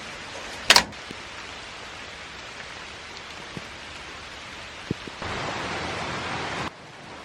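Steady rain hiss with a sharp knock about a second in and a few faint drips; the rain gets louder for a second and a half near the end, then drops away suddenly.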